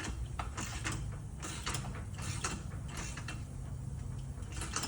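Ratchet wrench clicking in uneven strokes as the forcing screw of a ball joint press is turned to press out a ball joint, over a steady low hum.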